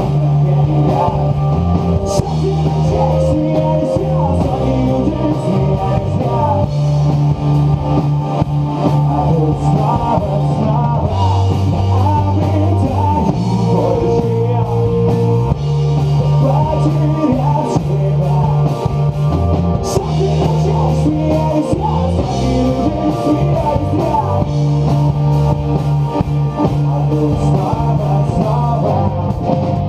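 Live rock band playing loud, steady progressive-alternative rock on electric guitars, bass guitar and drum kit, with the bass line moving between notes every second or two.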